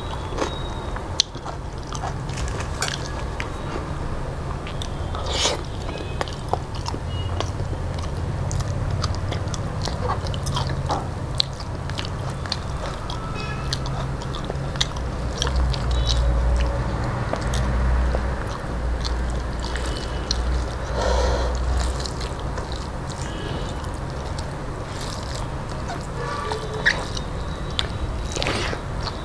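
Close-miked eating with the hand from a steel plate: fingers mixing rice with curry and potato, scattered clicks and taps on the metal, and chewing of mouthfuls.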